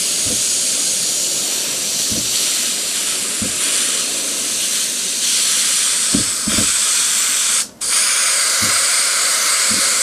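Veda WD-182 airbrush spraying paint: a steady hiss of compressed air through the nozzle, cut off briefly about three-quarters of the way through and then resumed.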